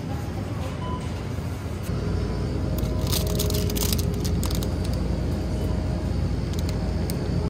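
Supermarket ambience: a steady low hum of refrigerated display cases that grows louder about two seconds in, with a plastic-wrapped food package crinkling as it is pulled off the shelf about a second later.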